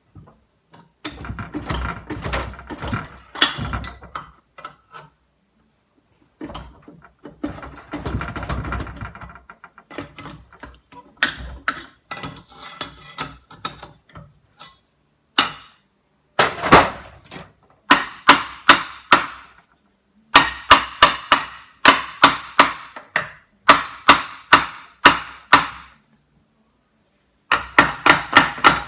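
Metal clattering and scraping of tools and engine parts, then repeated rapid hammer blows in bursts of several strikes, knocking at a stuck part of a Briggs & Stratton lawnmower engine to drive it loose.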